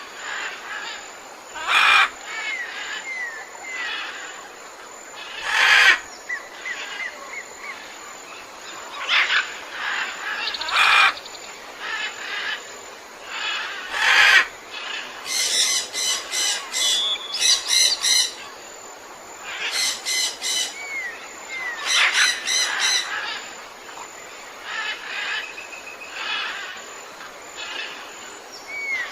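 A chorus of several jungle birds calling over a steady background hiss. Loud harsh squawks come about 2, 6 and 14 seconds in, among short chirps that sweep downward, and fast rattling chatter calls cluster in the second half.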